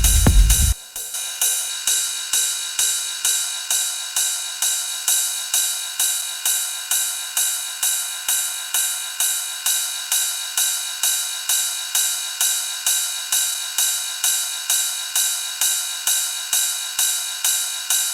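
A techno track's full mix with kick and bass cuts out about a second in. What remains is a looping electronic hi-hat or cymbal part alone, bright metallic hits about two a second with no low end.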